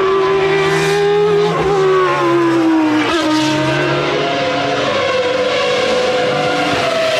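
Renault Espace F1's 3.5-litre Renault Formula One V10 running hard on track. The pitch drops sharply at gear changes about a second and a half and three seconds in, then climbs slowly as it pulls through the next gear.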